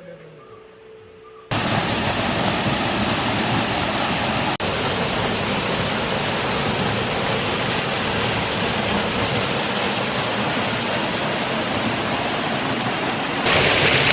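Waterfall: a steady rush of falling water that starts suddenly about a second and a half in and runs on evenly.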